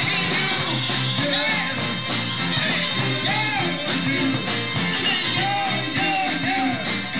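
Live band playing rock and roll: electric guitars over a drum kit, with a voice singing.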